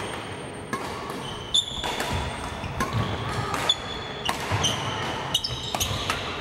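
Badminton rally on a hardwood court: repeated sharp racket-on-shuttlecock hits mixed with short squeaks of court shoes on the wooden floor, in a large echoing hall.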